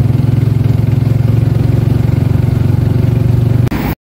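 Motorcycle engine of a tricycle running steadily, heard from inside its sidecar cab as a loud, even low drone. It cuts off suddenly near the end.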